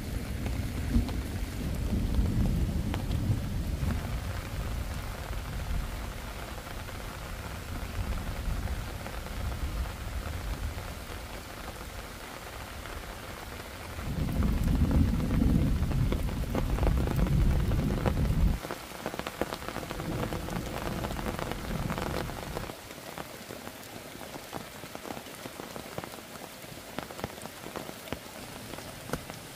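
Rain falling, with small scattered taps, and a deep rumble that is loudest in the first few seconds and again in the middle, stopping abruptly the second time.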